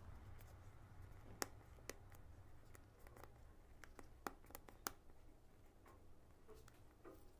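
Fingers picking at the edge of a cardboard smartphone box, giving a few sharp clicks and ticks, the clearest about a second and a half in and between four and five seconds in, over quiet room tone.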